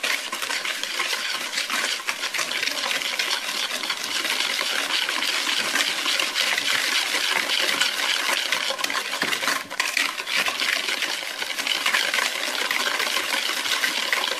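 Wire hand whisk beating eggs and sugar in a plastic bowl: a fast, continuous clatter of the wires against the bowl. There is one brief break about ten seconds in.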